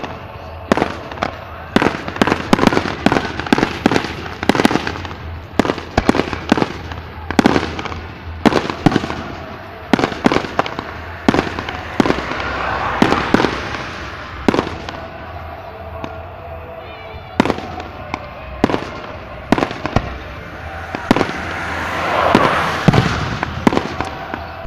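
Aerial fireworks shells bursting overhead: a run of sharp bangs, often several a second. About halfway through, and again near the end, there are stretches of dense crackling.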